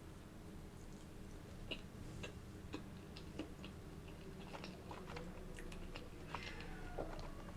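Close-miked chewing of crusty baked food, irregular small crunches and mouth clicks a few times a second.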